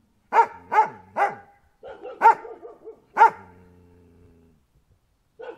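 A dog barking: three quick barks, a few softer yips, then two more sharp barks with a drawn-out tail that fades away, and barking starting again right at the end.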